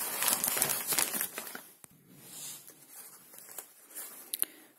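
Paper wrapping crinkling and rustling as hands unfold it, loudest over the first second and a half, then softer rustles with a couple of sharp crackles near the end.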